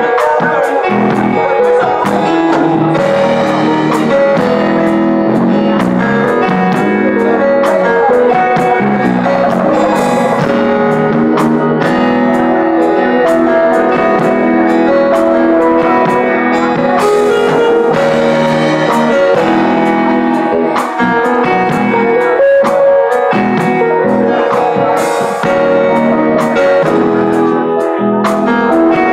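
Live band music: electric guitar and keyboard playing steadily over regular drum hits.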